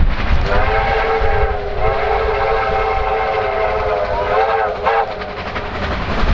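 Victorian Railways R class steam locomotive whistle sounding three times: a blast of about a second, a longer blast of about three seconds, then a short toot.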